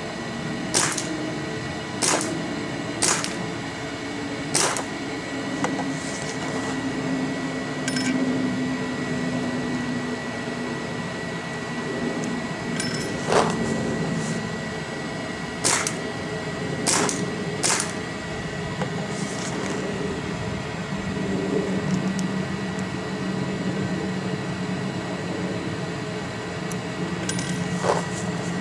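Planet Eclipse Ego 11 paintball marker with a stock Cure 3 bolt firing single shots, about nine sharp pops spaced unevenly with a long gap in the middle: shots over the chronograph while the inline regulator is turned up toward 290 fps.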